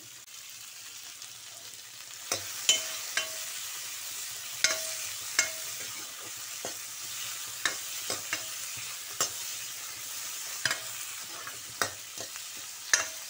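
Chopped capsicum and tomato sizzling in hot oil in a steel kadai while a metal spoon stirs them, clinking and scraping against the pan. The sizzle grows louder about two seconds in, with irregular sharp clinks, a few ringing briefly.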